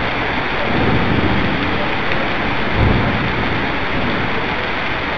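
Heavy rain pouring steadily, with low rumbles of thunder swelling underneath, the strongest near the middle.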